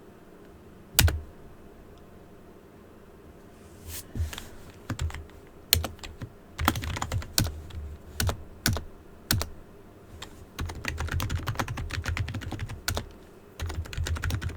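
Computer keyboard typing: one sharp key press about a second in, then bursts of quick keystrokes that grow denser toward the end.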